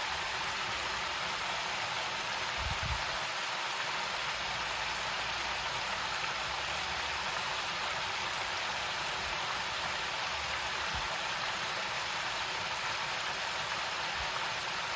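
Chicken pieces deep-frying in hot oil, about 365 to 375 degrees, in an electric deep fryer: a steady sizzling hiss. A low thump about three seconds in.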